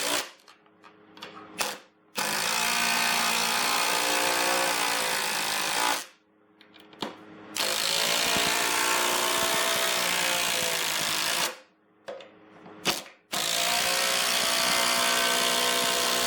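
Ryobi 18V ONE+ brushless three-speed impact driver on high, hammering screws into wood. Three runs of about four seconds each, one screw per run, with short pauses and brief trigger blips between them.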